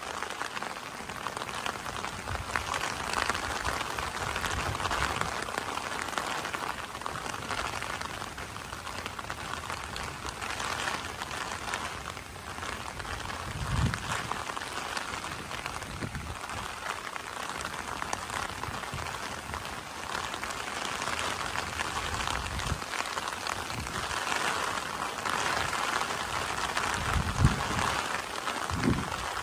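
Steady rain falling in a brief summer shower, an even hiss of drops with a few short low thumps.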